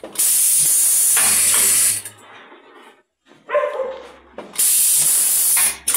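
Pneumatic button-attaching machine letting out two loud hisses of compressed air, each lasting over a second, with a short mechanical clunk between them.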